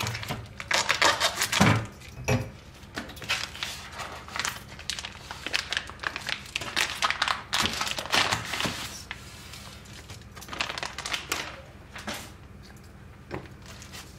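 Crinkling and rustling of plastic wrapping as thin pastry dough sheets are unwrapped and handled, in irregular crackly bursts.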